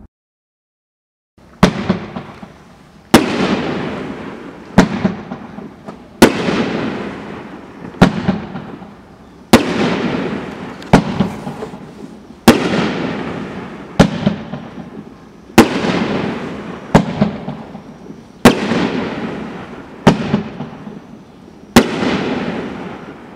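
Mad OX 'Watermelon Moonshine' 7-shot fireworks cake firing: a string of about fourteen sharp bangs, roughly one every second and a half, as the shots launch and break in red and glittering silver. Each bang trails off in a fading tail. The bangs begin after a moment of silence.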